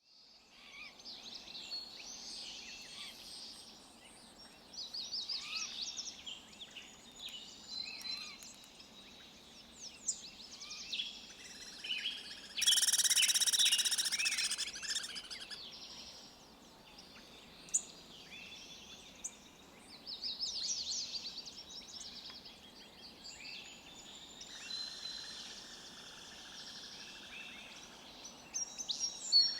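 Several forest songbirds chirping and trilling on and off over a faint steady background hiss. About 13 seconds in, a loud, rapid, buzzy trill or chatter lasts about two seconds.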